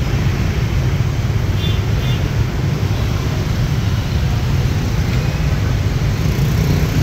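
Rush-hour gridlock of scooters and cars: a steady low rumble of many small motorbike engines idling and creeping along together.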